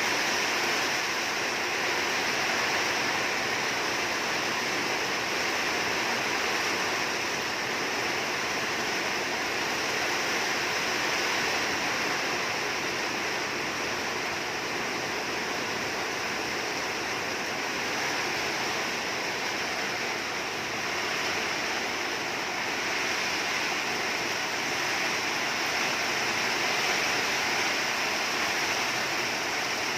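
Rain falling steadily in strong wind, a continuous even rush.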